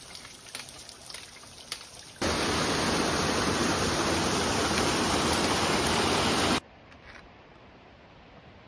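Waterfall rushing, loud and steady, starting suddenly about two seconds in and cutting off abruptly about four seconds later. Before it come quieter outdoor sound and a few light clicks, and after it a quiet background.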